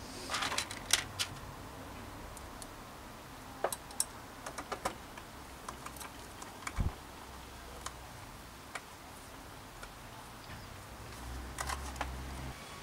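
Scattered light metallic clicks and taps as the jockey wheel, its bolt and an Allen key are handled on a Shimano Deore rear derailleur lying on a concrete floor, with a cluster of clicks at the start and another near the end.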